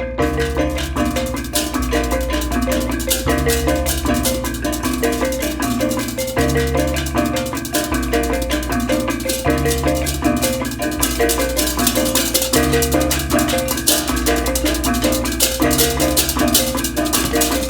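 Balinese baleganjur gamelan playing: massed ceng-ceng cymbals clash in fast interlocking patterns over a reong gong-chime melody, kendang drums and deep gong strokes.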